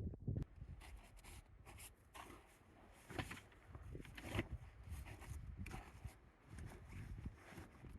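Irregular rustling and crunching, like gear being handled or steps, over a low rumble of wind on the microphone.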